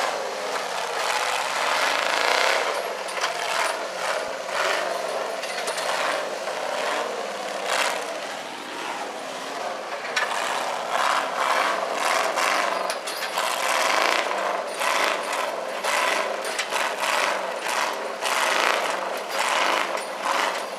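Rock bouncer buggy's engine running hard at high revs as it climbs a rocky hill, with frequent knocks and clatter as the chassis and tyres bounce on the rocks.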